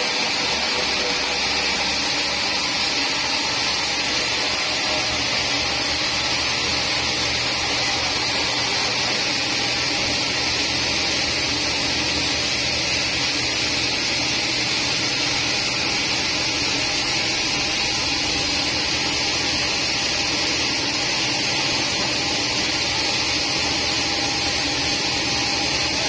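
Large sawmill band saw running steadily, its vertical band blade cutting lengthwise through a teak log.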